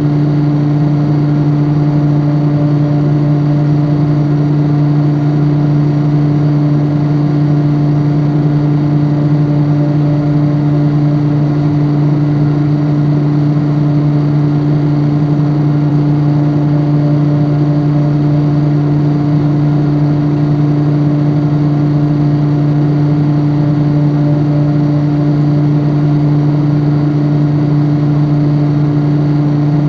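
Steady hum of an electrical appliance: a strong low drone with an even hiss above it, unchanging throughout.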